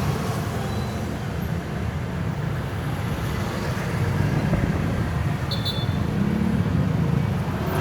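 Steady low road and traffic noise heard from a moving NWOW EMC Golf electric vehicle, with a brief high-pitched tone about five and a half seconds in.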